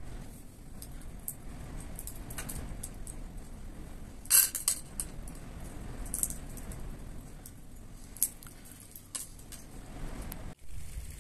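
Light clinks and taps of kitchen utensils and dishes being handled during cooking, with a louder clatter of several clinks about four seconds in, over a steady low background noise.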